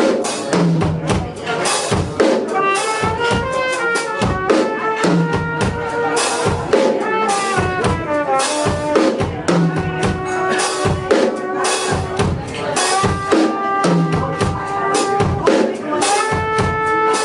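A small band playing an upbeat tune: drum kit keeping a steady beat, with a melody line, possibly horns, stepping up and down over it.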